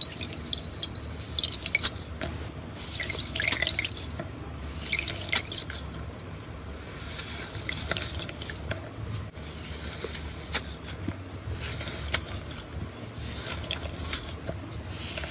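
Slime being squeezed and worked by hand, giving wet, sticky clicks and pops that come in clusters with short pauses between them.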